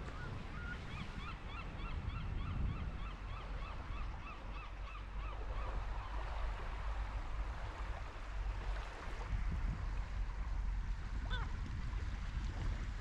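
A gull calling: a fast run of repeated harsh notes, about four a second, lasting some five seconds, then one more single call near the end. A low wind rumble runs underneath.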